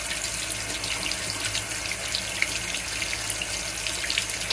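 Bathroom sink faucet running steadily, its stream pouring into a rubber chicken toy's open beak and splashing into the sink.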